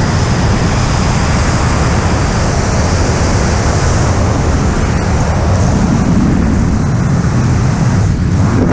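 Skydiving freefall airflow buffeting the camera's microphone: a loud, steady rush of wind with no breaks.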